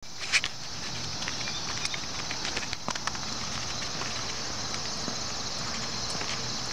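Footsteps on asphalt with an old tennis ball being kicked along, a sharp tap about a third of a second in and lighter scuffs and taps after. Behind them, a steady high-pitched insect chorus.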